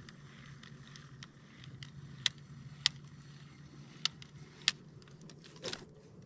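Sharp clicks and taps from a spinning rod and reel being handled, in two pairs about half a second apart, with a softer knock near the end, over a faint steady low hum.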